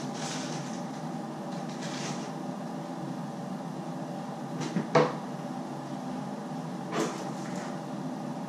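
Steady kitchen appliance hum, with two sharp knocks: a loud one about five seconds in and a softer one two seconds later.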